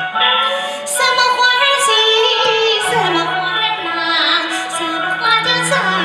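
Peking opera singing in a high female voice that glides between held notes, over instrumental accompaniment with light, regular percussion strokes.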